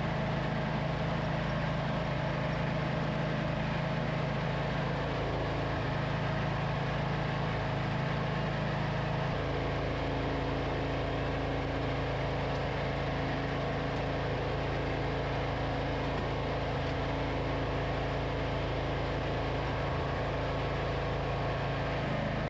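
Riding lawn mower engine running steadily while towing a lawn sweeper, with a slight shift in its tone about nine seconds in.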